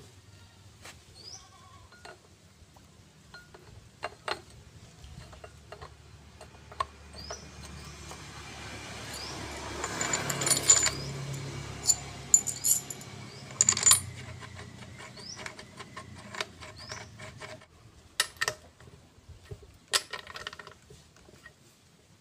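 Scattered metallic clinks and knocks from a Colt Diesel truck's differential carrier and ring gear being worked into the axle housing, densest a little past the middle. A low rumble swells and fades through the middle.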